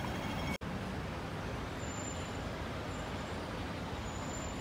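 Steady hum of city road traffic, with a brief dropout about half a second in.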